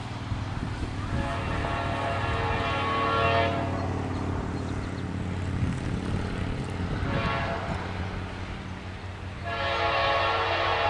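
Distant diesel freight locomotive air horn, the lead Norfolk Southern C40-9W of an approaching intermodal train. It sounds a long blast, a short blast about seven seconds in, and another long blast starting near the end, over a steady low rumble.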